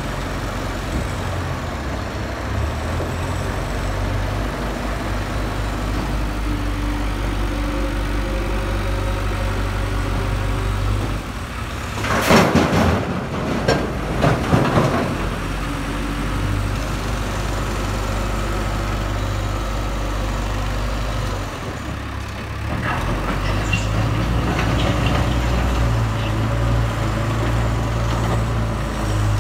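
JCB 3DX backhoe loader's diesel engine running steadily, then louder after a short dip about twenty-two seconds in. About twelve seconds in, a few seconds of loud crashing and clattering as concrete rubble is tipped from the front loader bucket into a tipper truck's bed.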